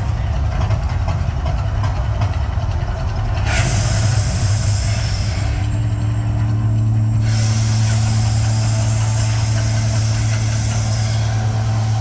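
Mirage volcano show effects: a steady deep rumble with two long hissing whooshes. The first starts about three and a half seconds in and lasts about two seconds; the second begins about seven seconds in and runs about four seconds before cutting off.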